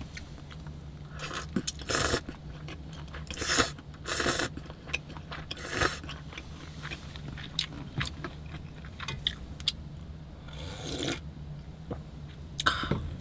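Someone eating cold buckwheat noodles (Pyongyang naengmyeon): several short slurping and chewing sounds, over a steady low hum.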